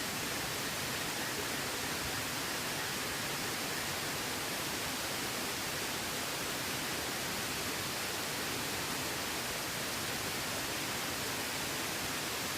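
Steady, even rushing of water, unbroken throughout.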